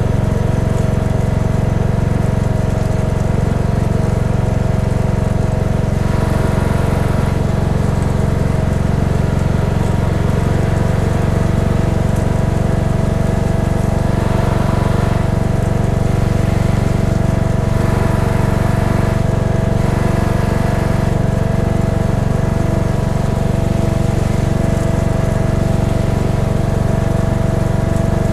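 Cub Cadet XT1 riding lawn tractor engine running steadily under load while towing a tine dethatcher across the lawn, with a constant whine over the engine note.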